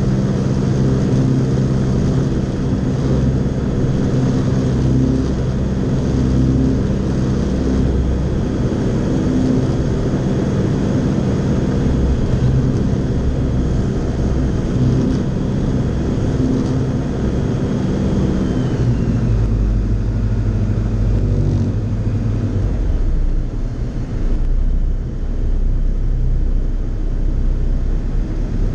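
Fly Synthesis Storch S ultralight's engine and propeller droning steadily in cruise, heard inside the cockpit with wind noise over the cabin. About two-thirds of the way through, the engine note drops lower and stays there.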